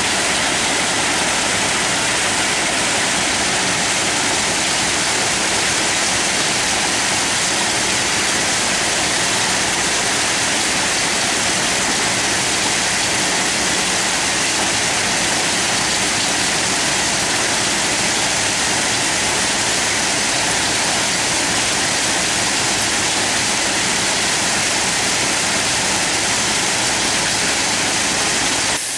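Railway ballast cleaner at work: a loud, steady rush of noise from its machinery and ballast stones pouring back onto the track.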